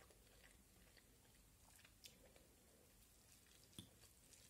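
Near silence with faint chewing of spaghetti and a few soft clicks of a fork on a plate, the clearest near the end.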